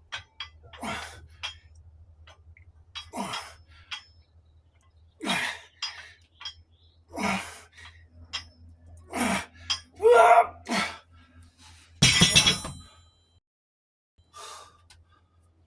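A man breathing hard through exercise reps: forceful exhales about every two seconds, with a metallic clink about twelve seconds in.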